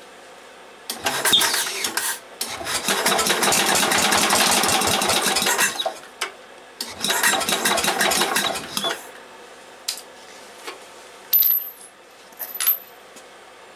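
Briggs & Stratton I/C cast-iron engine being spun by its belt-driven starter-generator and firing on priming fuel in three loud bursts, the longest about three seconds, each dying away. A couple of light metallic clinks follow near the end.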